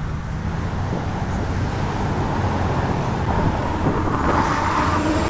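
Steady low rumble of motor traffic, growing a little louder about four seconds in.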